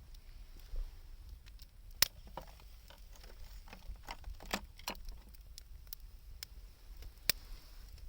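Wood fire crackling, with irregular sharp pops, the loudest about two seconds in and near the end, and a cluster of smaller crackles in the middle.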